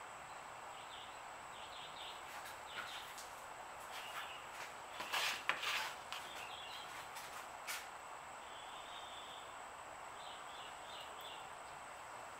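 Plastic wrap crackling as it is peeled off wet acrylic paint, in a loud rustle about five to six seconds in. Under it runs a steady background hiss with short bursts of faint bird chirps.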